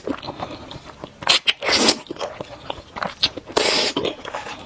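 Noodles slurped into the mouth in three short sucking bursts, with wet chewing and smacking clicks between them.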